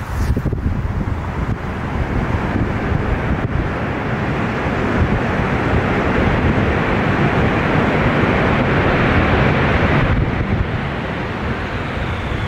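Boeing 747-400's four jet engines running at high thrust as it rolls along a wet runway, a steady roar mixed with the hiss of spray thrown up by the engines and tyres. It grows louder toward its peak about nine seconds in, with a faint high whine near the end.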